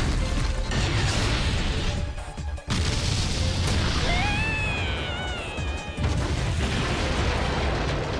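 Anime soundtrack with heavy rumbling crash effects under music. A wavering, falling cry rises over it at about four seconds in.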